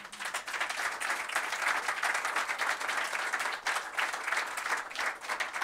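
Audience applauding, a dense run of many hands clapping that starts as a thank-you speech ends.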